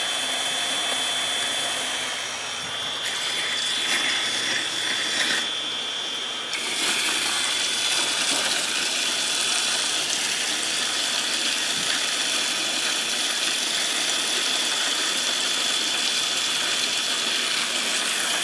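Goulds Irrigator GT07 electric centrifugal pump running steadily under pressure, primed and pumping at about 37–38 psi, with a steady high whine over the rush of its water. About six and a half seconds in, the splash of the hose's jet into a bucket of water grows louder.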